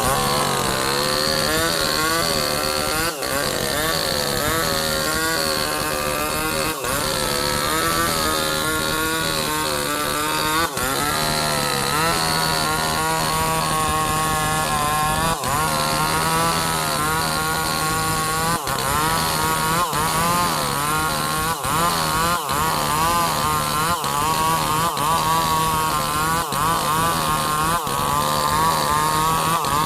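Two-stroke chainsaw running at high revs and cutting through sengon wood, its engine pitch wavering as the chain bites and eases, with brief dips in sound every few seconds.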